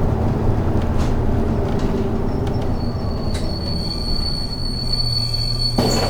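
City bus heard from inside, its engine and road noise rumbling low while a steady high-pitched brake squeal sets in about halfway through as it slows. A short hiss near the end, typical of air brakes releasing air as the bus pulls up.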